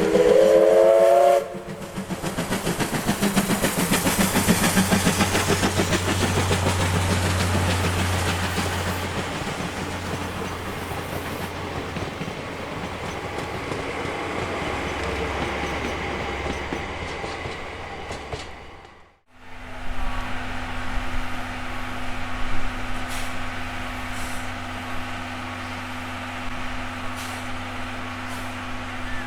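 C11 steam locomotive sounding its whistle in one blast that cuts off about a second and a half in, followed by the train running with a fast, even rhythmic clatter that slowly fades. After a sudden break, a steady low hum with fixed tones.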